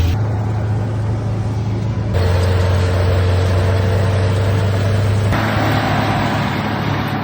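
Tractor engines running steadily during haying, in short clips that change abruptly about two and five seconds in.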